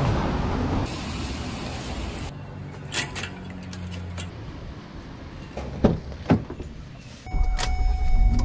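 Bicycles being lifted and fastened onto an SUV's rear hitch rack: handling noise and small clicks, with two sharp knocks about six seconds in. Near the end a car engine rumbles at idle with a steady high tone over it.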